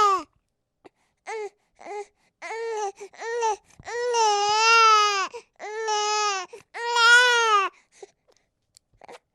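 Infant crying: a run of short cries, then three longer wailing cries, breaking off about eight seconds in, with only faint small sounds after.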